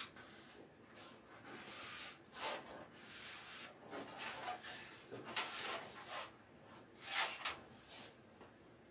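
Faint rustling and scuffing as hands and a cloth dressmaker's tape measure brush over a car's wheel-arch panel, in a series of short strokes.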